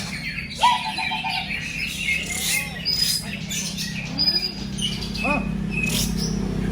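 Many caged contest songbirds chirping and whistling over one another in a dense, overlapping chorus, with a steady low hum underneath.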